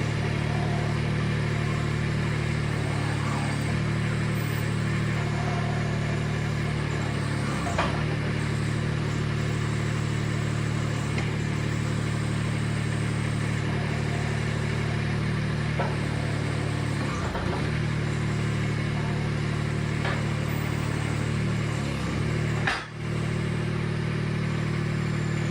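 Vermeer S600TX mini skid steer's engine running at a steady speed, its note dipping briefly a few times.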